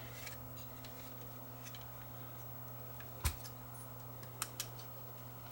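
Scattered small clicks and taps from handling small camcorder mechanism parts, with one louder click about three seconds in and two lighter ones about a second later, over a steady low electrical hum.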